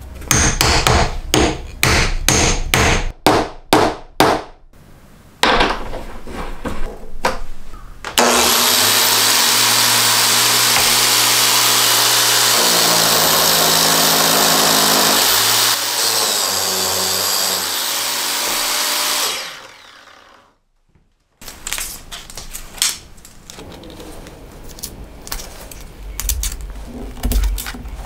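Sharp clicks and knocks as wooden and metal parts are fitted together. Then a Makita GA4033 angle grinder, slowed to about 5000 rpm and driving a homemade belt sander on a wooden pulley, runs steadily for about eleven seconds with its pitch stepping down twice, and winds down. After it stops, light rustling and tapping of sandpaper being handled.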